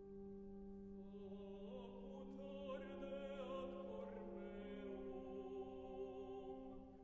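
A soprano singing a long held line with vibrato over a sustained organ chord. The voice enters about a second in and drops away near the end.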